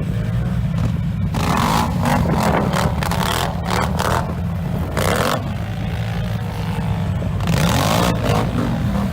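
An ATV engine running steadily while riding, with repeated bursts of rushing noise over the engine.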